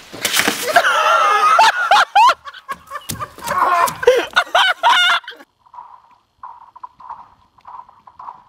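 A body hits the frozen surface of an above-ground pool with a loud scraping slide across the ice. It is followed by several seconds of high, wavering yells and shrieks from people. In the second half there are only faint, short sounds.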